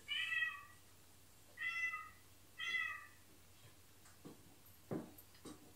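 A house cat meowing three times, short calls about a second apart, played back from an earlier video of the same cat. A few faint clicks follow near the end.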